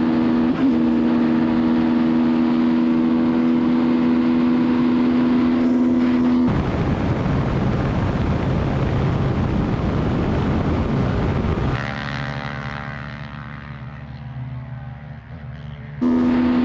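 Race engines at full speed: the four-wheeler's 450 cc single and a Cessna 180's propeller engine. A steady high engine drone changes abruptly about six seconds in to a loud wind-heavy rush. Near twelve seconds it drops to a quieter engine hum, then the drone comes back near the end.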